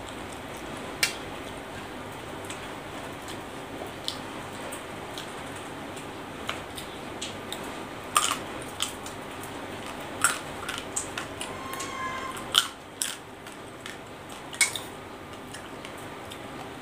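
Close-up chewing and crunching of raw vegetables and rice noodles, with scattered sharp crunches and clicks over a steady background hiss.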